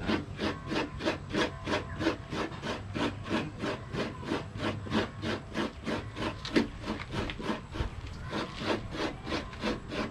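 Coconut being scraped on a stool-mounted coconut grater: fast, even rasping strokes, about four a second, as the meat is shredded into the bowl below.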